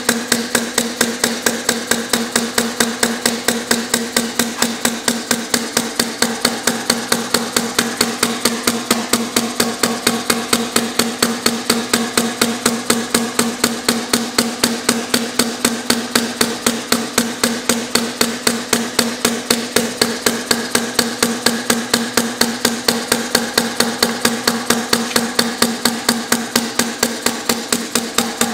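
Compressed-air model of an inverted hit-and-miss engine running in straight four-stroke mode: an even, unbroken rhythm of sharp knocking puffs, roughly two to three a second, as its quick-release air valve is snapped open on each power stroke.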